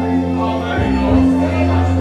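Karaoke backing track playing loudly through a PA system, with sustained bass notes that shift about a second in.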